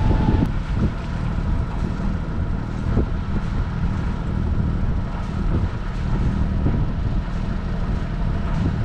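Wind buffeting the microphone over a sailboat's inboard diesel engine running steadily under way.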